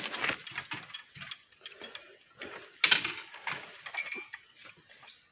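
Irregular mechanical clicks and knocks, with a sharper knock about three seconds in, over a steady high insect drone.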